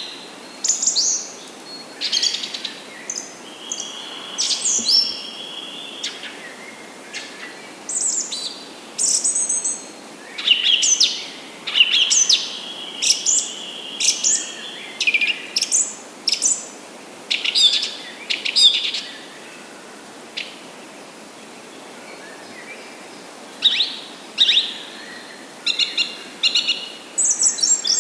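Several birds chirping and calling in quick short phrases, with a few longer held whistled notes and a pause of a few seconds past the middle, over a faint steady hiss.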